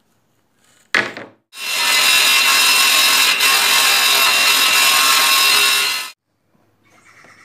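Table saw ripping a board of Australian oak: a steady, loud cutting noise with a thin whine in it, lasting about four and a half seconds and cutting off abruptly. Just before it, about a second in, there is a short sharp burst.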